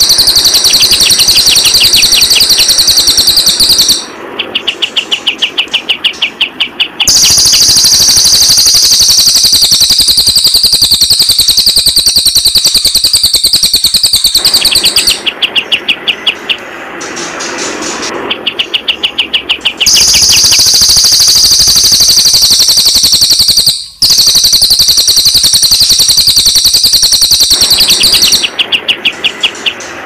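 Cililin and kapas tembak birds singing loudly. Long, high-pitched, fast-trilling songs are broken four times by short runs of rapid, dry, rattling notes.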